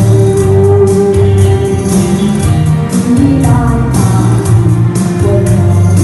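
A woman singing a Chinese song into a microphone over backing music with a steady beat.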